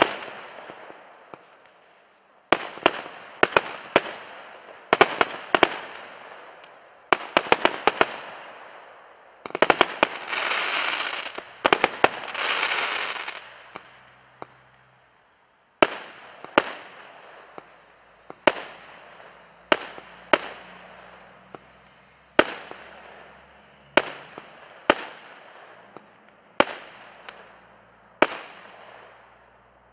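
Jonathans Fireworks Endurance compound cake firing: tubes going off with sharp bangs, in quick clusters at first. About ten seconds in comes a few seconds of dense hissing, and after that single bangs follow every second or two.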